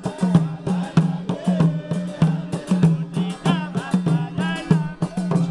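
Music: a quick, steady drum beat, about three strokes a second, under voices singing.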